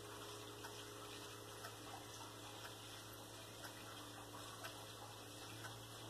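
Faint room tone with a low steady hum and a soft tick about once a second.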